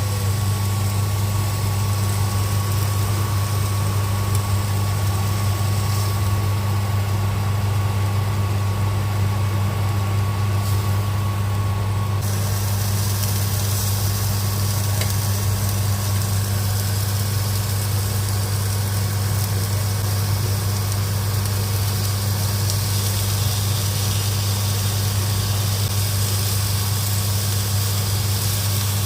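A steady low hum, like a small motor or fan running, unchanging throughout.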